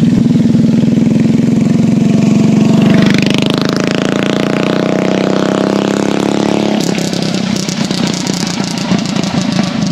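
An engine running loud and revving up, its pitch climbing steadily for about four seconds, then dropping abruptly about seven seconds in and running on rougher.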